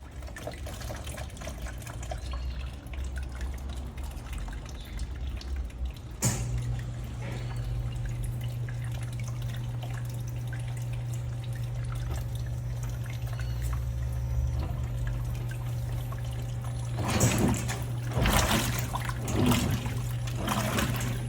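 Electrolux LTM16 washing machine starting its wash cycle with water running in. About six seconds in there is a click and a steady low hum sets in. Near the end come several louder bursts of splashing.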